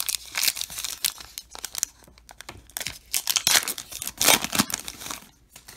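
Baseball card pack wrapper being torn open and crinkled by hand, a run of crackling tears that is loudest about three and a half to four and a half seconds in.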